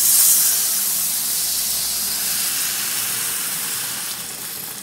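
Water poured into a hot kadhai of fried masala and chickpeas, hitting the pan with a sudden loud hiss and sizzle that slowly fades.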